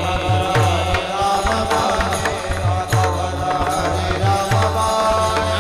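Kirtan devotional music: held melodic tones over a steady beat of low drum strokes and sharp metallic clicks.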